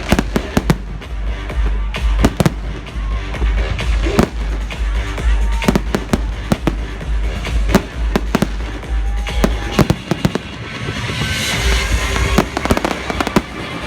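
Fireworks display going off: repeated sharp bangs and deep booms of aerial shells over a soundtrack of music, with a stretch of dense crackling about three quarters of the way through.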